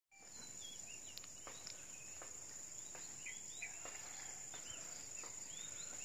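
Insects holding one steady high-pitched drone, with small birds giving repeated short, thin chirps, some rising and some falling in pitch. All of it is faint.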